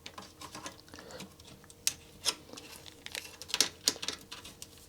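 Irregular small clicks and scrapes of a tool working on socketed memory chips on a Commodore Amiga 1000 motherboard as they are pried loose. The clicks are loudest and closest together a little past three and a half seconds in.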